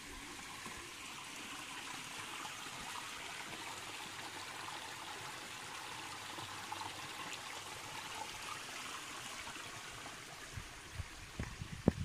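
Small forest brook trickling steadily over rocks. Near the end come a few low thumps and one sharp knock.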